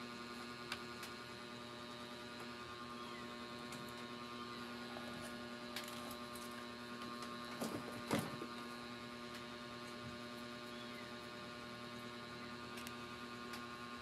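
Steady electrical mains hum with a faint whine, and a few faint clicks and taps of handling, the loudest cluster about eight seconds in.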